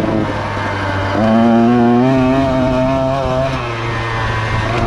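Racing engines running at high revs. One engine comes up louder and holds a steady pitch about a second in, then eases off past the middle.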